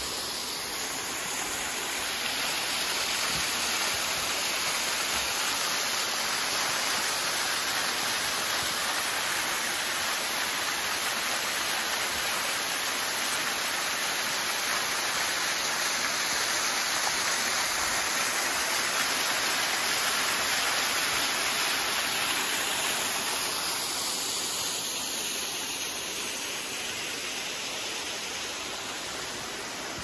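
Juney Whank Falls, a small mountain waterfall, rushing steadily as it spills over rock. The rush grows louder over the first few seconds and eases off near the end.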